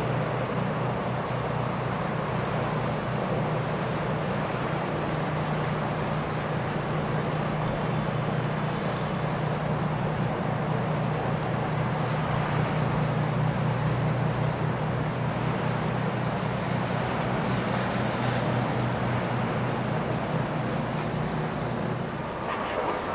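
Boat engine running steadily, with water rushing and wind on the microphone; the engine hum drops away near the end.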